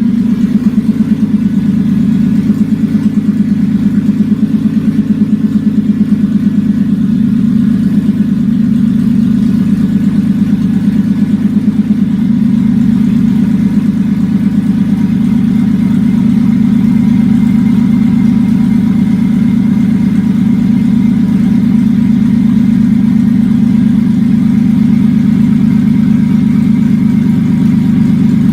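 Toyota Avalon's 3.0 L V6 running steadily with open exhaust manifolds and no exhaust system, giving a loud, unmuffled, rapidly pulsing exhaust note near idle.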